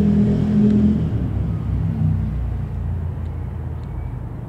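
Cessna U206F Stationair's single piston engine droning overhead, its steady drone growing fainter as the plane moves away.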